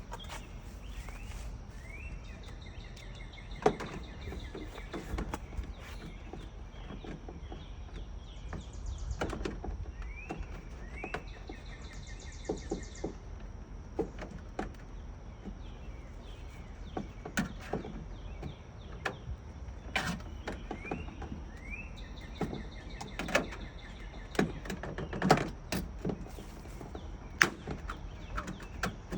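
Outdoor ambience with birds chirping in short rising calls and trills over a steady low rumble. Sharp clicks and knocks come at scattered moments, more often in the second half.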